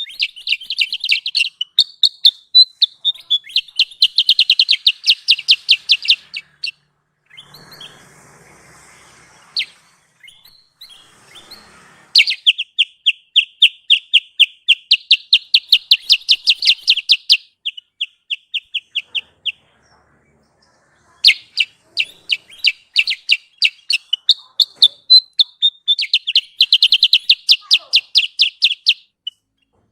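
Kutilang sutra song played as a bird-lure recording: long runs of quickly repeated high chirping notes, about three a second. The song comes in three bursts, with a pause of several seconds after the first and a short break after the second.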